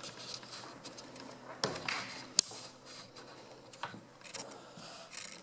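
Footsteps with scattered scrapes and soft knocks as someone walks through an empty tiled room, and one sharp click about two and a half seconds in.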